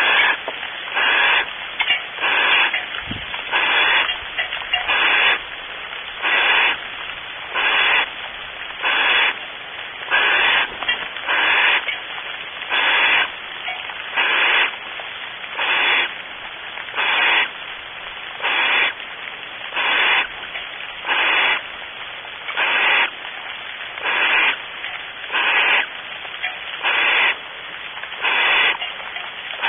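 Barn owl giving a rasping hiss call over and over, one harsh breathy burst about every second and a half. This is the snoring food-begging call owls give in the nest box when prey has been brought in.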